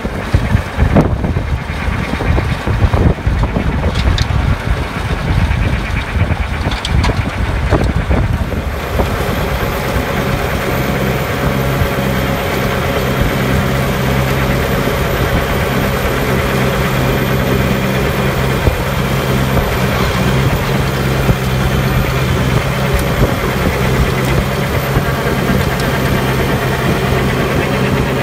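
Tractor engine running steadily, driving a JBM mulcher (a PTO-powered disc harrow) as it shaves through grass sod. For the first eight seconds or so wind buffets the microphone; after that the engine's steady hum comes through clearly.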